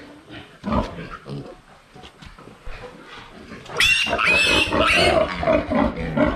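Piglet squealing loudly in long, high cries that start about four seconds in, while it is held upside down by its hind legs for castration.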